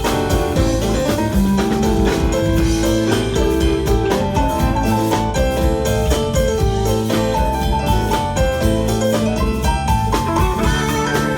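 Live blues band playing an instrumental passage: drums and bass under a lead instrument playing held melodic notes, with no singing.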